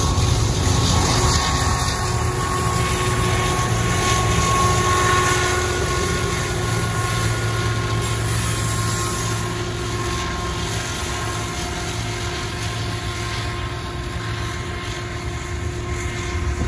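A train rolling past: a steady, loud rumble of locomotive and rail cars, with faint steady tones above it, easing slightly toward the end.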